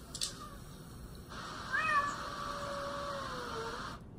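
A cat's meow played back through a laptop speaker: one long meow that begins a little under two seconds in and slides down in pitch toward its end.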